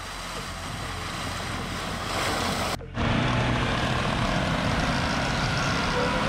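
Mitsubishi L200 pickup engine running under load as the truck churns through slush and snow, tyres throwing snow. The sound cuts out briefly a little under three seconds in, then comes back louder with a stronger engine note as the truck pushes through deep snow.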